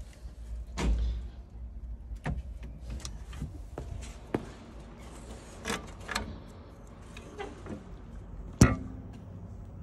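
Scattered clicks and knocks of a mini excavator's cab door and metal access panel being handled as someone climbs out and opens the side panel, with one sharp knock near the end the loudest.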